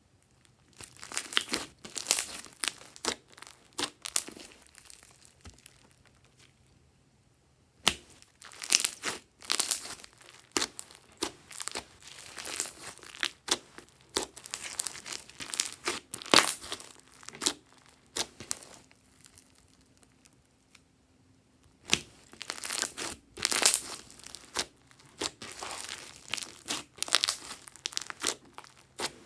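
Glossy slime being squished, stretched and folded by hand, giving off sticky crackling and popping. The crackling comes in three spells, with short quiet pauses in between.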